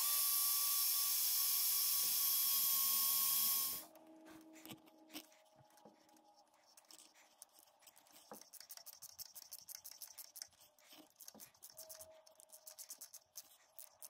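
Cordless drill running steadily as it drills a hole into the cast iron lathe bed; it stops suddenly about four seconds in. Then a hand tap wrench turns a tap into the new hole, giving faint quick clicking.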